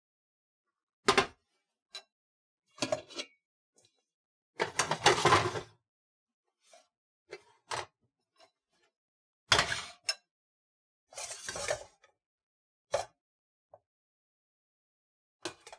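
Kitchenware being handled: a series of about ten separate clinks and knocks of pots, pans and utensils, with a longer clatter about five seconds in.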